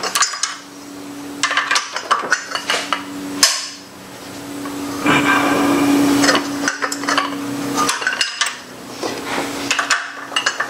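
Half-inch ratchet on an E12 Torx socket, with a steel jack handle slid over it as a cheater bar, clicking and clanking as the cylinder head bolts of a BMW S52 engine are cracked loose. Bursts of sharp metallic clicks and clinks, with a longer noisy stretch about halfway through.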